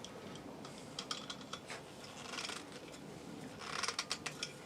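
Faint metallic clicks and scrapes of a hand tool working at the gas orifice in an RV furnace's burner chamber, with a short run of quick clicks near the end.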